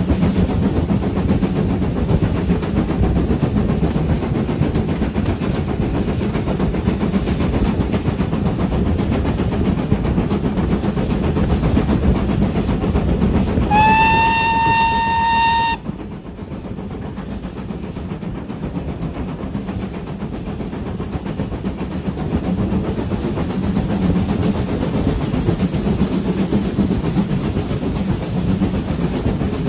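Steam locomotive hauling a train: the steady running noise of the carriages on the rails, and about halfway through a single clear whistle from the locomotive lasting about two seconds, rising slightly at the start and cutting off sharply. After the whistle the running noise is somewhat quieter.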